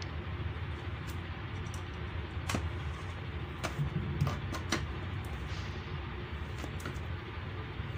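Light clicks and taps from handling a welding machine's capacitor circuit board, a few scattered sharp ones around the middle, over a steady low background rumble.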